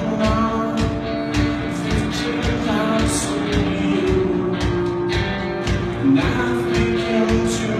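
Live rock band playing: a drum kit keeps a steady beat under guitars, with singing.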